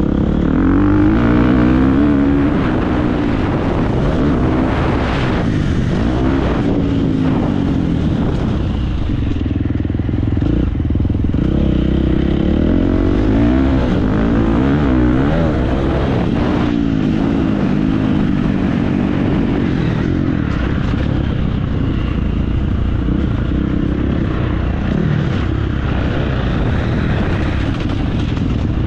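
Husqvarna FC350's single-cylinder four-stroke engine, revving up and dropping back again and again as the motocross bike is ridden hard, the pitch climbing and falling with the throttle.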